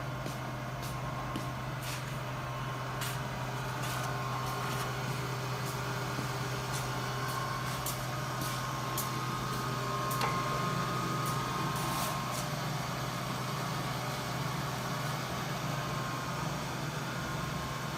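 Hasegawa WHN-1 3-shaku lathe running with a steady low hum and a faint whine, with a few light ticks.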